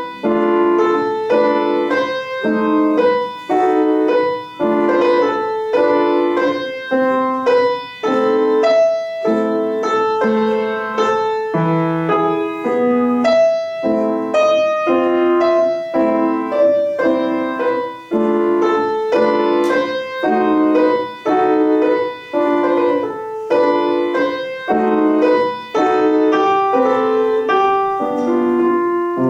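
Solo piano playing a classical piece: a melody over an even, continuous flow of chords.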